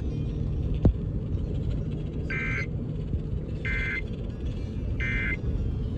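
Emergency Alert System digital data tones (SAME code) sent as three short, identical bursts about a second and a half apart. The bursts are brief, the length of the end-of-message code that closes an alert. They sit over a steady low rumble of radio reception noise, with a single click about a second in.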